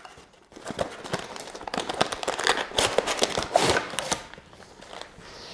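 Small cardboard box being pulled open, then plastic bags holding coils of filament samples crinkling and rustling as they are taken out by hand. The sound is irregular crackling and scratching that dies down near the end.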